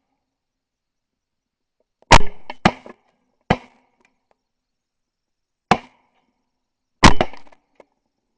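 Five shotgun shots fired at a flight of geese: two in quick succession about two seconds in, then single shots spread over the following five seconds, the first and last the loudest.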